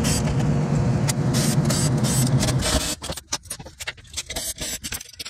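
Cordless drill running steadily as it backs out screws holding a circuit board in an EV power inverter, stopping suddenly about three seconds in. Light clicks and clinks of handling follow.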